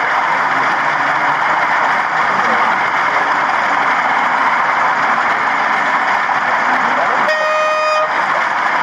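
Steady crowd chatter, and about seven seconds in one short horn blast, under a second long and steady in pitch, from a sound-fitted model diesel locomotive.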